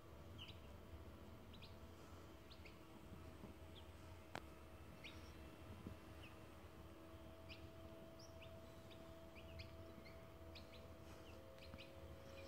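Day-old Cochin chicks peeping faintly: short, high cheeps scattered irregularly from several chicks, with one sharp click about four seconds in.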